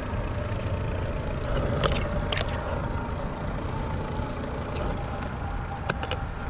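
A steady low outdoor rumble with a faint hum. A few light clicks and water splashes come as a hand reaches into a bait bucket of water and lifts out a live shrimp.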